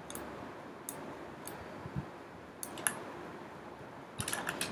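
Scattered sharp clicks of a computer mouse, a few single clicks and then a quick run of several near the end, over a faint steady hiss.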